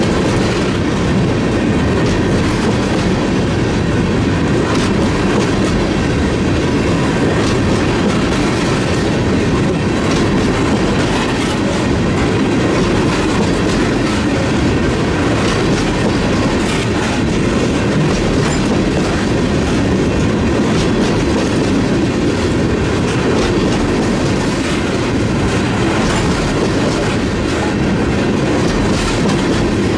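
Empty ethanol tank cars of a freight train rolling past: a steady rumble of steel wheels on the rails with a clickety-clack of wheel sets over rail joints.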